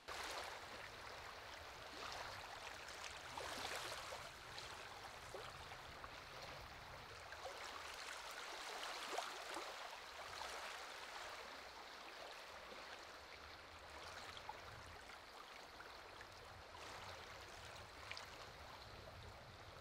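Faint, steady rushing noise of outdoor ambience, swelling a little around four and nine seconds in.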